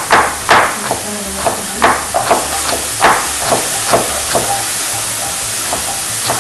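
Kitchen knife chopping bell peppers on a wooden cutting board, sharp irregular knocks about two a second. Under them is the steady sizzle of diced chicken frying in a pan as it is stirred with a wooden spoon.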